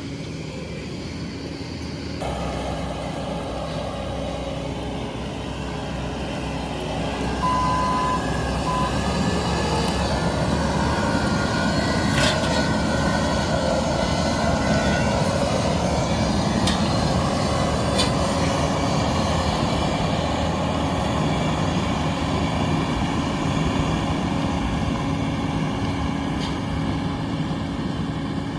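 Bobcat T770 skid steer's diesel engine running under load with the Vail X Series hydraulic brush cutter spinning as it clears overgrown brush. The sound grows louder about a quarter of the way in and holds steady, with a few sharp knocks.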